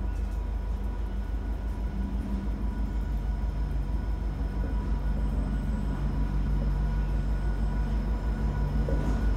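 Diesel freight locomotive heading a quarry train, approaching along the track: a steady low engine rumble that grows gradually louder as it draws nearer.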